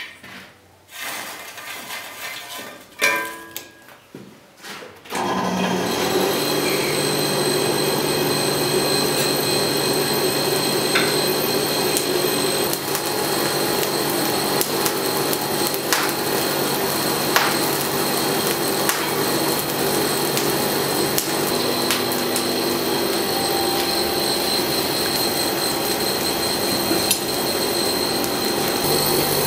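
Electric forge blower starting about five seconds in and then running steadily, forcing air into the coal fire, with scattered clicks from the fire. Before it starts there are a few irregular knocks and clatters of work at the forge.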